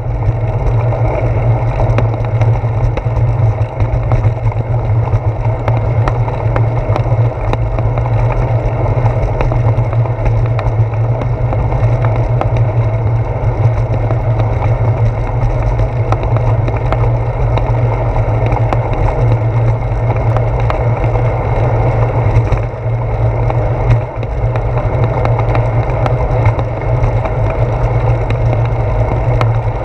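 Riding noise from a bicycle on a concrete path, picked up by a handlebar-mounted GoPro: a steady low rumble of wind and rolling, with frequent small knocks and rattles from bumps in the path.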